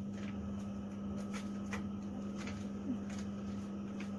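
A steady, even machine hum with several faint clicks and taps scattered through it.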